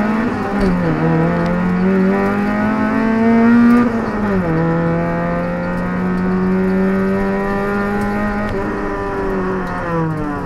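Putra 1800cc race car's four-cylinder engine heard from inside the cabin under hard driving. The revs climb for about four seconds with a short dip near the start, drop sharply, hold steady for several seconds, then blip and fall again near the end.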